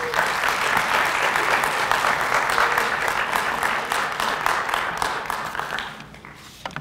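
Audience applauding: a dense clatter of many hands clapping that starts all at once and dies away about six seconds in, leaving a few scattered claps.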